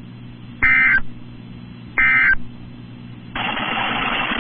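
NOAA Weather Radio SAME digital end-of-message bursts: two short, shrill warbling data bursts about a second and a half apart, closing the EAS fire warning. A steady radio hiss comes in about three and a half seconds in.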